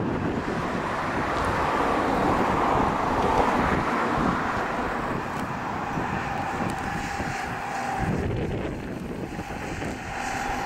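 The jet engines of a McDonnell Douglas MD-11F trijet freighter running at low taxi power: a steady rushing roar, with a faint steady whine coming in about six seconds in.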